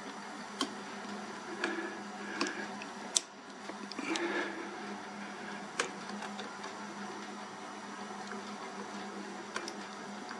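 Hands working the wire connectors onto a replacement motor capacitor: several sharp clicks and short rustles, mostly in the first six seconds, over a steady low hum.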